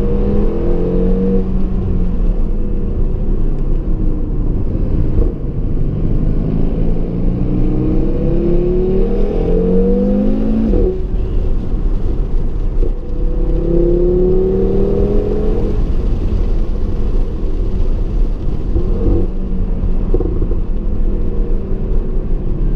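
Audi TT RS's 2.5-litre turbocharged five-cylinder engine pulling hard under acceleration, its pitch climbing over several seconds at a time. Near the middle the pitch drops sharply at an upshift, then climbs again, over a steady low rumble of road noise.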